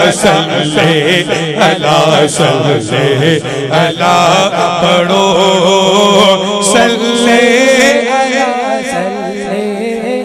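A man singing a Punjabi naat through a microphone and PA, drawing out long wavering melodic phrases with no clear words, over a low steady drone.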